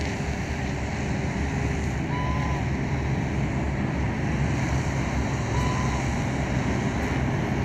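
Steady wind buffeting the microphone, a low rumbling rush. A short thin whistled note sounds twice, about two seconds in and again near six seconds.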